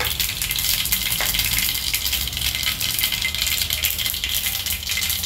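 Mustard and cumin seeds spluttering in hot oil in a frying pan: a steady, dense crackle of tiny pops as the seeds temper.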